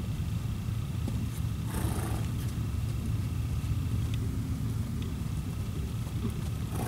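A horse snorting, short breathy blows through the nostrils about two seconds in and again near the end, over a steady low rumble.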